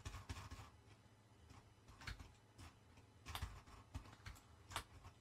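Faint, irregular clicking of a computer keyboard and mouse, some clicks coming in quick little clusters.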